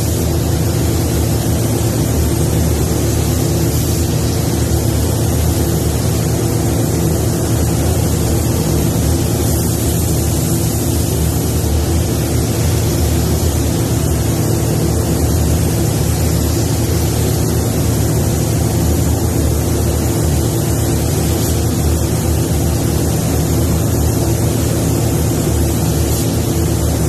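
Steady, loud paint-booth air noise: fans running with a constant low hum under an even airy hiss.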